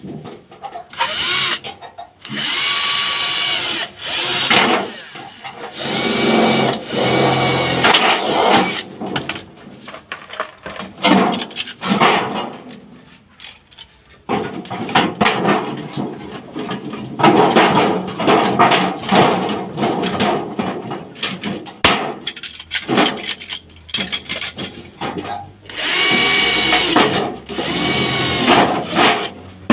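Power tool on sheet-metal gutter, running with a whine and starting and stopping in bursts of one to several seconds.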